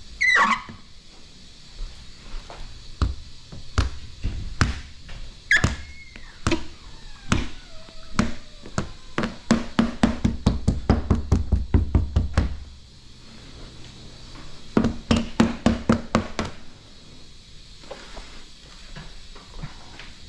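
Squeegee working wet paint protection film down on a car's rear hatch: scattered squeaks and knocks, then quick runs of strokes at about five a second, around the middle and again about three quarters through.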